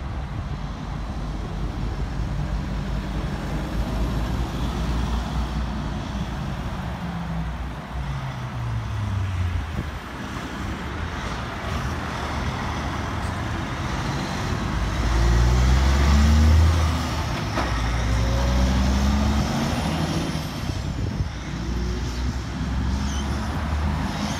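Diesel engine of a cab-over semi-trailer truck passing close: its revs drop as it slows, then climb twice as it pulls away through the gears. It is loudest about two-thirds of the way in, with steady road traffic hiss behind it.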